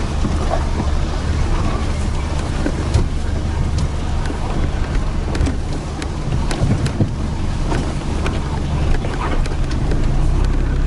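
Toyota Hilux engine running under load off-road, heard from inside the cab: a steady low drone with scattered knocks and rattles as the truck drives over rough, muddy ground.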